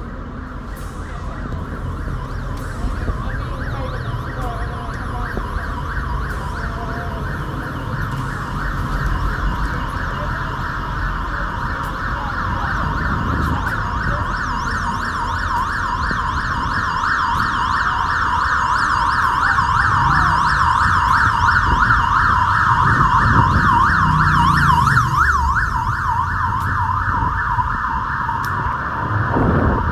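Emergency vehicle siren warbling rapidly up and down, growing louder through the second half, over low traffic rumble.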